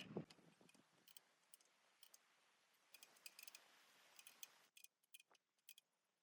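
Near silence, with faint scattered clicks and ticks over a low hiss.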